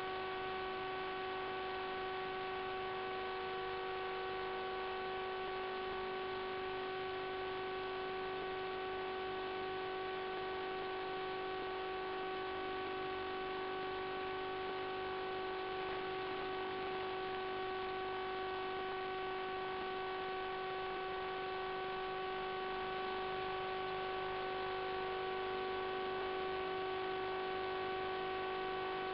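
Steady electrical hum: one unchanging tone with a stack of overtones. It holds the same pitch and level throughout, with no rise or fall.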